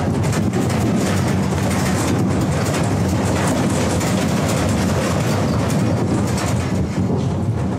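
Earthquake simulator recreating a magnitude 7.3 quake with intense vertical shaking: a loud, steady rumble with dense rattling and clattering.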